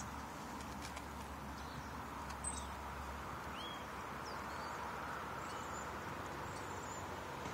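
Steady rushing of the fast-flowing, rain-swollen Sacramento River. Several short, high bird chirps sound over it.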